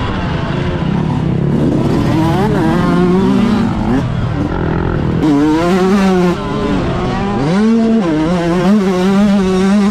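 Yamaha YZ125 two-stroke motocross engine heard from on the bike, revving up and down in pitch as the throttle is worked. About six seconds in the throttle shuts off briefly, then the engine winds back up.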